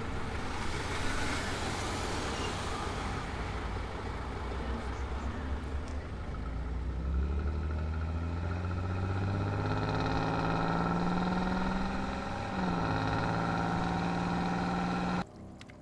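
Car engine running and accelerating, its pitch rising steadily, with a brief dip and change of note about twelve seconds in like a gear change; the sound cuts off suddenly near the end.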